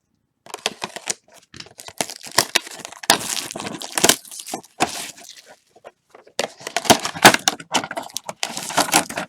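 Trading card packaging being torn open and crinkled by hand: a dense run of crackling, tearing and crinkling, with a short pause about two-thirds of the way through.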